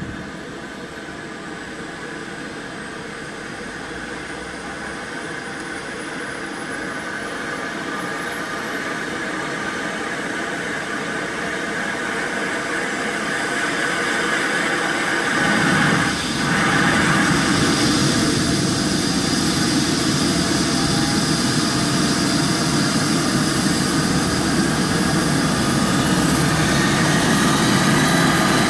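Eurocopter EC135 helicopter running up on the ground before take-off: its twin turbine engines whine, the pitch rising slowly, while the rotor noise grows steadily louder and fuller, stepping up about halfway through.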